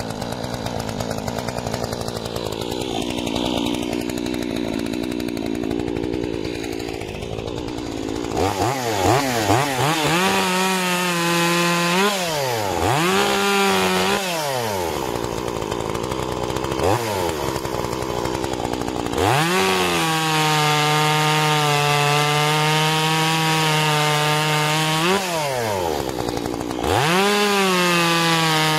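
Solo 6651 two-stroke chainsaw running unevenly at low speed, then revved up and down several times from about eight seconds in. It then holds high revs as the chain cuts through a log, dropping briefly once before going back to full throttle near the end.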